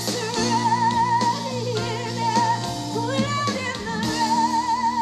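Female lead vocal singing long held notes with a wide vibrato over a live pop-rock band: sustained keyboard and bass chords with electric guitars and drums.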